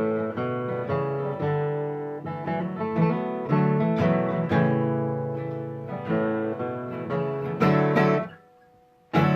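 Acoustic guitar playing an instrumental passage between sung verses of a song, with picked and strummed notes. The playing drops out to near silence for under a second near the end, then comes straight back in.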